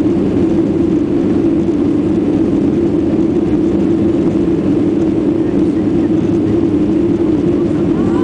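Steady drone inside the cabin of a Boeing 737-800 climbing out after take-off, from its CFM56-7B turbofan engines, with a strong even low hum.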